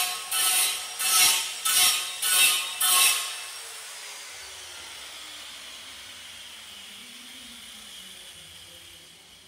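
Rhythmic rasping strokes, about two a second, that stop about three seconds in and leave a faint, slowly fading tail.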